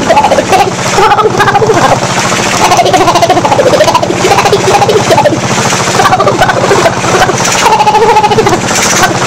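Cystic fibrosis airway-clearance vest (high-frequency chest wall oscillation 'beating vest') running: a loud, steady, very fast pulsing drone from its air-pulse generator.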